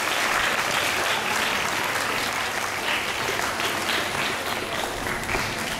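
Audience applauding, the clapping thinning toward the end into more scattered claps.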